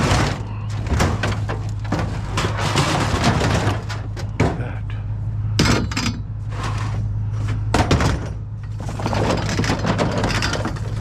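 Repeated knocks, bangs and clatter of scrap being handled and loaded, over the steady hum of an idling vehicle engine.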